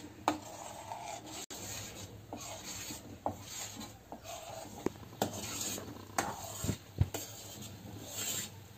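Steel spoon scraping and stirring along the bottom of a stainless-steel pan of melted buffalo-milk cream being cooked down into ghee, with irregular rasping scrapes and a few light metal clicks. The cream is stirred continuously on a low flame so that it does not catch on the bottom.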